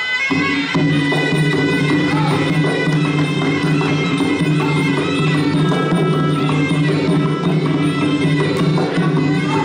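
Traditional Kun Khmer boxing ring music: a shrill reed pipe (sralai) playing a continuous melody over hand drums. It starts abruptly at the very start and then runs on at a steady level.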